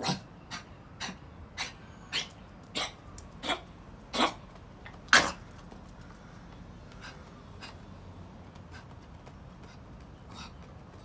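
A dog with kennel cough making short, hoarse, breathy coughs as it tries to bark, with no voice in them, about one every half second to second, the loudest about five seconds in, then a few fainter ones. The missing bark is the sign of a throat inflamed by kennel cough.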